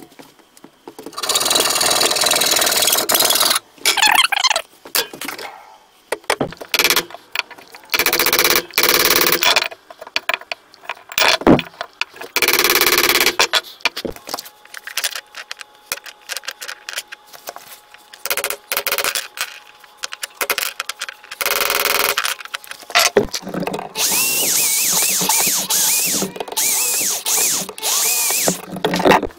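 Short cut-together workshop sounds, then an electric drill running steadily near the end as it bores out the old wooden handle stub from the eye of an axe head.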